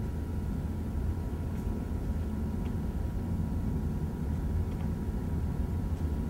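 Steady low rumble of distant city street traffic, with a faint steady high tone above it.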